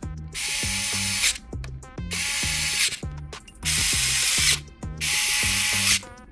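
Cordless electric precision screwdriver running in about four bursts of roughly a second each as it tightens the display hinge screws, over background music.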